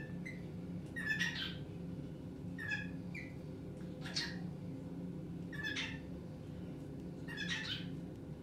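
Cockatiel calling repeatedly: about six short, pitched calls, roughly one every second and a half, over a steady low hum.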